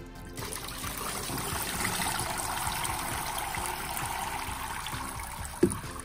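Water poured from a plastic bucket into a plastic toy water table, splashing and trickling down into the basin as a steady rush. It starts about half a second in and stops near the end, followed by a sharp knock.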